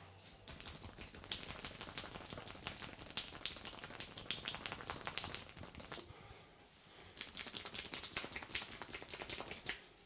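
Rapid hand tapping and patting of a massage on a man's head and shoulders: fast crisp taps in one long run, a pause about six seconds in, then a second run that stops just before the end.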